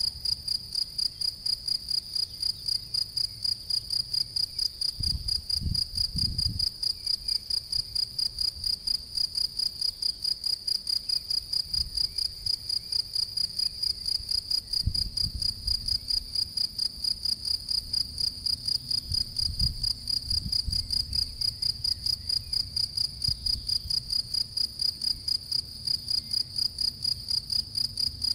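Male European field cricket (Gryllus campestris) singing its calling song: a high, pure-toned chirp repeated very evenly, about three chirps a second.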